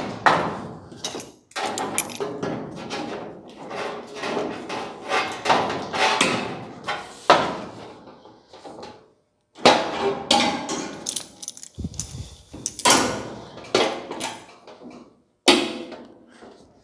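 Sheet-metal body panel clanking and rattling as it is handled, set onto a wire-frame buck and shifted into place, with a string of sharp metallic knocks that ring briefly.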